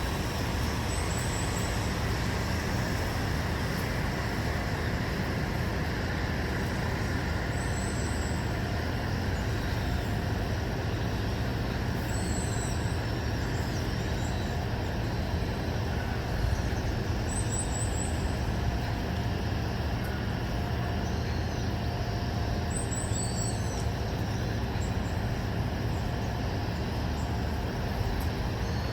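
Steady low rumble of distant road traffic, with short high chirps recurring every four or five seconds.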